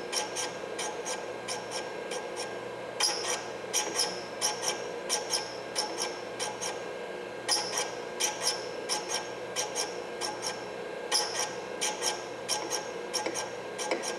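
Valve refacing machine's grinding stone running steadily while a valve stem tip is swept back and forth across it, giving short, sharp grinding strokes several times a second in runs with brief pauses. The stem end is being ground down a few thousandths at a time to set the valve's length for adjustable lifters.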